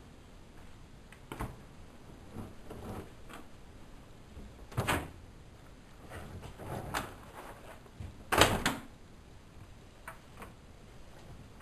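Irregular knocks and clunks from a Whirlpool Expert 1000 washing machine, with two louder clunks about five and eight seconds in.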